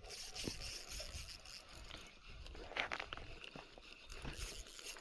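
Spinning reel being cranked while reeling in a hooked fish, with scraping handling noise and a louder scrape a little under three seconds in.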